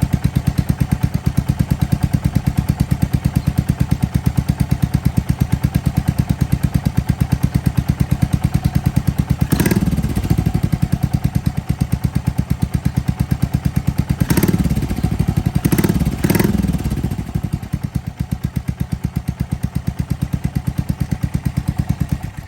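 Yamaha SR400's single-cylinder four-stroke engine idling with evenly spaced exhaust pulses. The throttle is blipped about ten seconds in and a few more times a little later. The engine sound stops at the very end.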